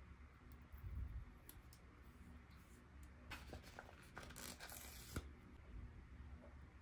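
Faint handling of toy packaging: rustling with light clicks, busiest from about three to five seconds in and ending with a sharp click.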